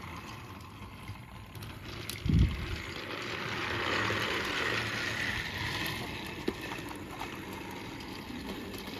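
Battery-powered toy train's motor whirring as it runs along plastic track, swelling a few seconds in, with one loud thump about two seconds in.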